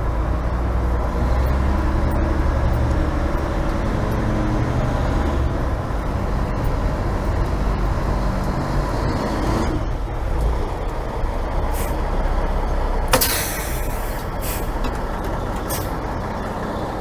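1982 Mack fire engine running as it drives, a steady engine drone that eases off about ten seconds in. About thirteen seconds in comes a sharp air-brake hiss, with a few shorter air hisses around it as the truck pulls up and stops.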